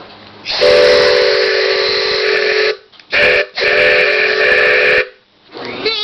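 Wooden train whistle blown with compressed air from an air blow gun, sounding several pitches at once as a chord over a loud rush of air: one long blast, a brief one, then another long blast.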